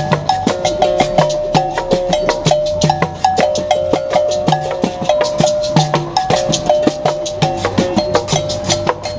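Berimbau played in a fast, steady rhythm, its struck string switching between two notes, with a drum beating underneath about twice a second.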